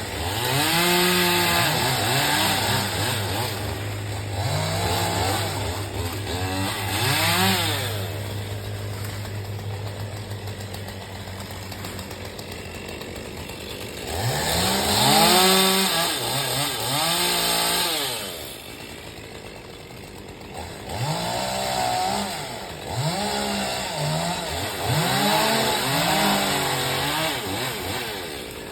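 Chainsaw revving up and down over and over, its pitch rising and falling with each squeeze of the throttle as it cuts into a tree. A steady low engine hum runs underneath for the first twelve seconds or so, then stops.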